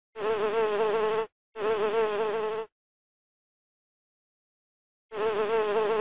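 Bee buzzing in short bursts of about a second each, a steady, slightly wavering buzz that starts and stops abruptly: two buzzes close together near the start, a pause, then another buzz about five seconds in.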